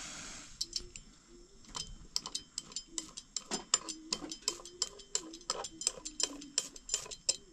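A metal utensil clicking and scraping against a hot pan as food is stirred, in quick irregular taps that grow denser from about two seconds in, over a faint steady hum.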